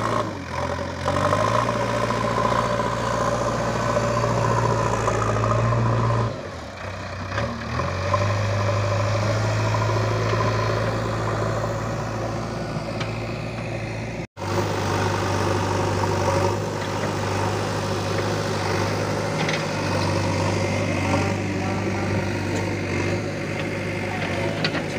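JCB 3DX backhoe loader's four-cylinder diesel engine running steadily as the machine works, a continuous drone that eases off briefly about six seconds in and breaks off for an instant about fourteen seconds in.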